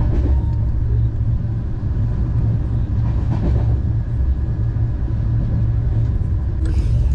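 Passenger train running at speed, a steady loud low rumble heard from inside the carriage beside the window.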